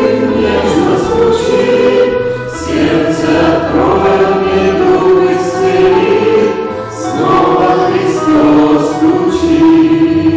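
A choir singing a Christian hymn, voices in harmony holding long notes.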